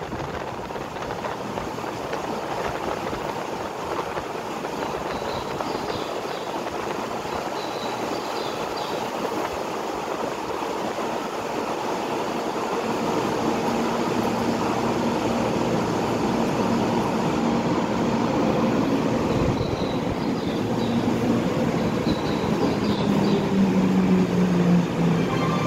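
Tokyo Metro Hanzomon Line train approaching and pulling into an underground platform: a rumble that grows louder through the second half, with a motor tone that slides down in pitch near the end as the train slows.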